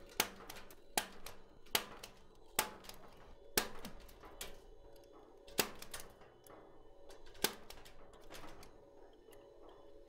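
Punch-down tool snapping wires into the insulation-displacement slots on the back of a Cat 6 patch panel: about seven sharp clicks at uneven intervals.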